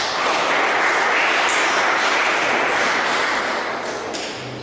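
Spectators clapping after a table tennis point. The clapping starts suddenly and fades over about four seconds. A single sharp click comes near the end.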